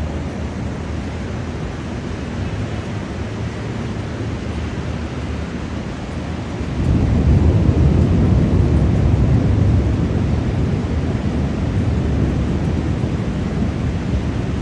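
Steady rain falling, with a long low roll of thunder that rises sharply about halfway through and slowly fades.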